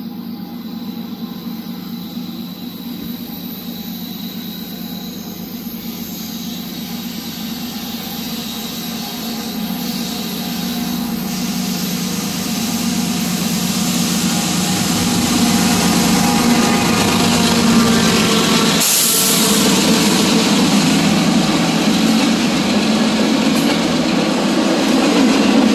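CSX intermodal freight train approaching without sounding its horn, its diesel locomotives, a GE C40-8W among them, growing steadily louder. The locomotives pass about 19 seconds in, and then double-stack container cars roll by with a steady rolling rumble.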